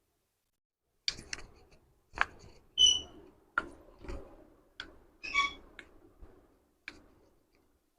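Joints cracking under chiropractic manipulation: a series of short, sharp cracks and clicks, about ten in all at irregular intervals of half a second to a second. Two brief squeaks come with them, about three seconds in and again around five and a half seconds.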